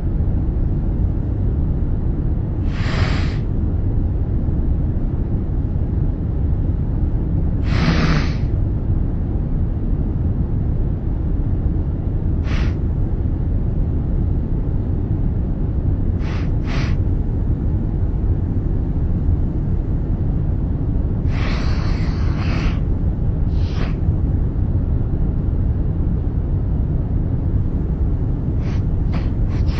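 A sick man sniffling: short, sharp sniffs every few seconds, some in quick pairs and a run of three near the end. Underneath is the steady low rumble of an aircraft cabin.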